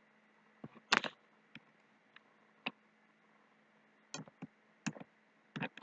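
Computer mouse and keyboard clicks: a few scattered single clicks, then a quicker run of key taps from about four seconds in, over a faint steady hum.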